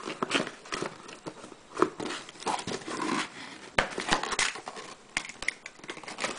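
Small cardboard watch box being cut and pried open by hand: irregular crinkling and scraping of cardboard and paper, with a couple of sharp clicks.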